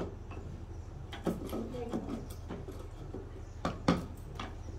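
Hand chisel being driven into a wooden workpiece: a few sharp, irregular knocks of tool on wood, with quieter taps between and two close together about a second before the end.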